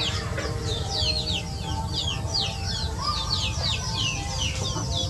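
A flock of young chickens calling as they forage: a rapid run of short, high, falling peeps with some lower clucks, over a steady low rumble.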